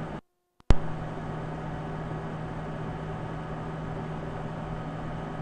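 IGT AVP slot machine running: a steady fan noise with a constant electrical hum, broken just after the start by a brief dropout to silence and a single sharp click.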